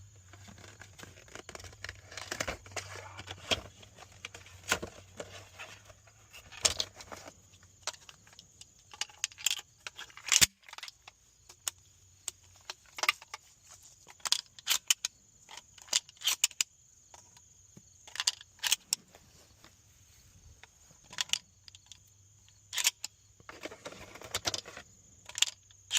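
Scattered sharp clicks, rattles and crinkling of things being handled at close range, irregular through the whole stretch, with the sharpest click about ten seconds in, over a faint steady high hiss.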